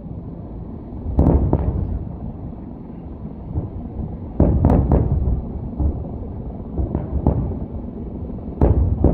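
Fireworks display: aerial shells bursting in sharp booms, each trailing a low rumble. There are two bursts about a second in, a quick cluster of several around the middle, and more near the end.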